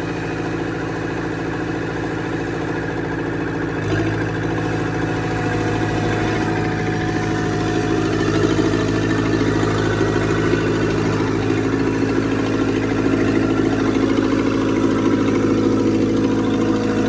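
Engine running with no exhaust fitted, picking up speed and getting louder about four seconds in, then running on steadily.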